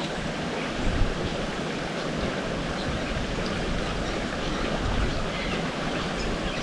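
Steady rushing of a small river's water running over rocks, with wind buffeting the microphone in a low, uneven rumble.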